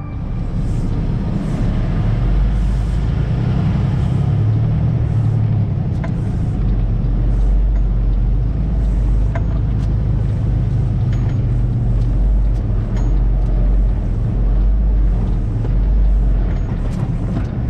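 Diesel engine of a flatbed semi truck running as the truck drives, a steady low rumble with scattered light clicks and rattles.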